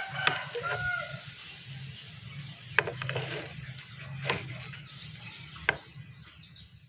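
Chickens clucking briefly in the first second, then four sharp taps spread through the rest, over a steady low hum.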